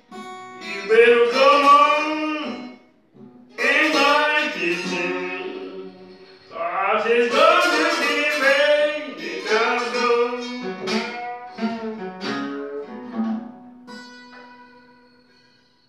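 Solo acoustic blues guitar: plucked strings under long melody phrases that bend and slide in pitch. Separate plucked notes follow, and the piece closes on a single ringing note that fades out.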